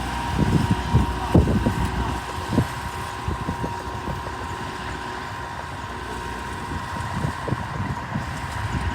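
Mitsubishi BD2F bulldozer's diesel engine running steadily, with a constant whine and irregular low knocks and rumbles from the machine at work.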